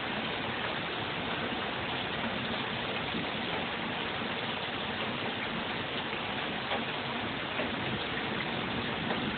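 Thunderstorm rain falling steadily: an even hiss with scattered faint ticks of drops.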